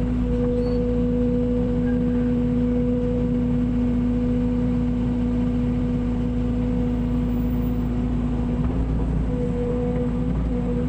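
Mini excavator's diesel engine running steadily, with an even, unchanging hum.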